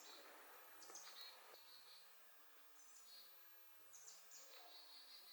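Faint bird calls in woodland, about three times: each is a short, very high note followed by a slightly lower held note.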